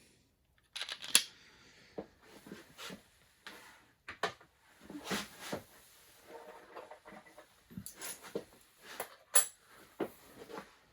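Irregular clicks, knocks and rustling as small milling-machine tooling and accessories are handled and set down, with a sharp knock about a second in and another near the end.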